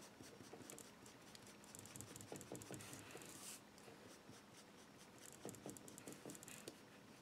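Faint scratchy rubbing of a mini ink pad being dragged in repeated strokes along the paper edges of a card, with a few soft knocks.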